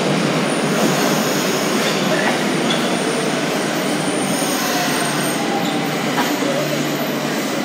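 Meijo Line subway train pulling into the station alongside the platform: a steady rush of wheels and running gear, with faint gliding squeals in the second half as it brakes.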